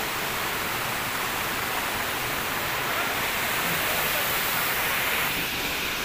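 Waterfall and its stream rushing steadily, an even unbroken hiss of falling water.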